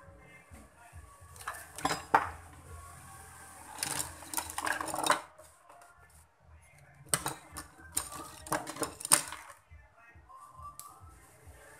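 Metal tools and small parts clattering and rattling as they are rummaged through, in three bursts of a second or two each.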